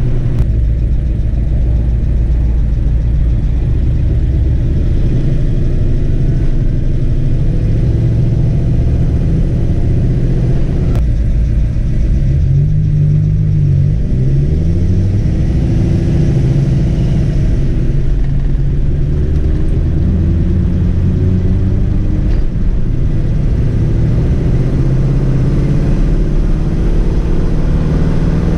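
XC Ford Falcon's 351 Cleveland V8 running while the car is driven, its note climbing and dropping again with the throttle about halfway through.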